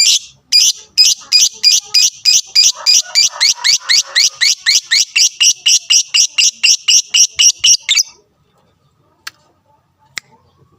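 Lovebird giving its long, rapid chattering call ('ngekek'): a fast run of short, shrill, rising chirps that quickens to about four a second and stops abruptly about eight seconds in. This is the 'fighter' call that keepers play to provoke other lovebirds into calling.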